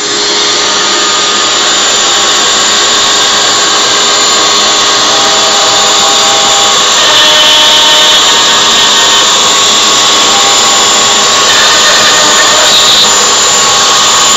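A homemade CNC router's spindle running at full speed with a steady high whine as it cuts a part out of plywood.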